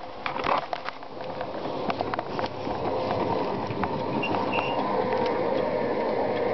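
Federal Signal Streethawk lightbar running with all its warning lights on: a steady whirring hum from the rotator motors, with scattered small clicks throughout.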